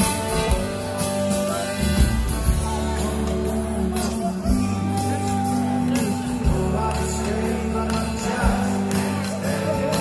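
Live band playing a rock song, with singing over guitar.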